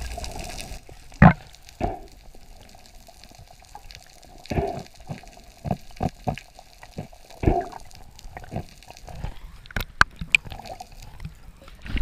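Muffled underwater sound picked up by a diver's action camera: irregular knocks and clicks, the loudest a thump about a second in, and a cluster of sharp ticks near the end.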